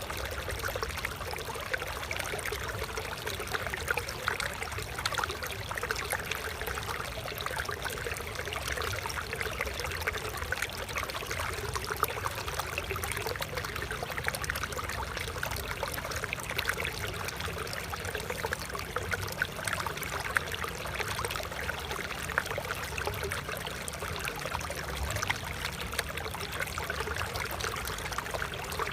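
Small stream of water flowing and trickling steadily, a constant babble with fine splashing.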